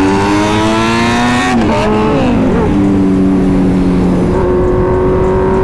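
Kawasaki Ninja 1000's inline-four engine pulling hard, its pitch climbing steadily. Its pitch drops sharply about two seconds in, then holds steady.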